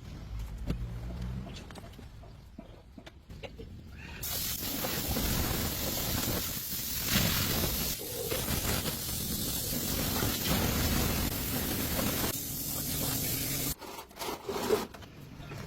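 A steady spraying hiss starts suddenly about four seconds in, runs for about ten seconds, and cuts off abruptly. Low rumbles and a few knocks come before and after it.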